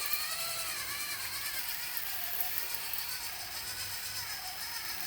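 Small electric motor whine of an RC concrete mixer truck's drum drive, turning the drum slowly to unload a load of floor-dry granules; the pitch wavers up and down steadily.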